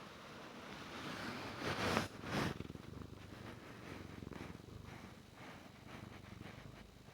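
Domestic cat purring steadily, picked up very close on a lavalier mic. There are two louder, noisy swells around two seconds in.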